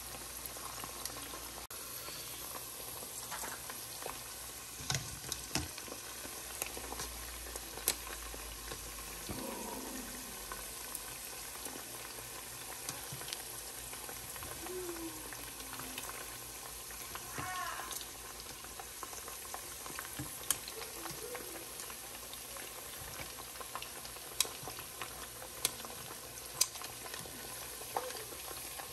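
Chicken frying in hot oil: a steady sizzle with scattered sharp pops.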